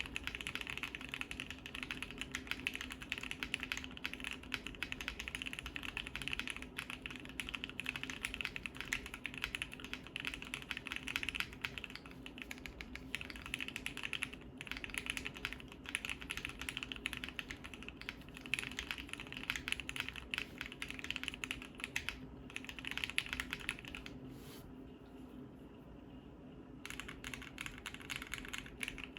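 Continuous fast typing on a Bakeneko60 mechanical keyboard with lubed and filmed Gateron Ink Black V2 linear switches on an FR4 plate, the keystrokes sounding clacky. The typing pauses for about two seconds near the end, then picks up again.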